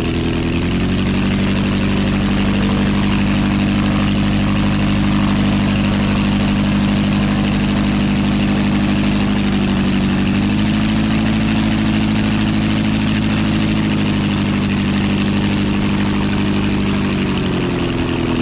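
Half-scale replica ENV Type F water-cooled V8 aero engine running steadily with its propeller turning. The revs change several times as the throttle is worked: they drop about a second in, rise about ten seconds in, ease back a few seconds later and pick up again near the end.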